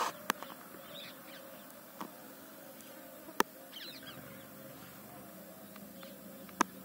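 Quiet open-field ambience: faint bird chirps about a second in and again near four seconds, over a faint low hum. Four short sharp clicks stand out, the loudest about three and a half seconds in.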